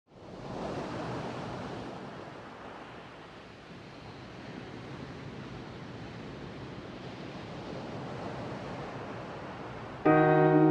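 A soft rushing noise, like surf, fades in, swells about a second in, eases and swells again. About ten seconds in, music with sustained chords comes in, louder.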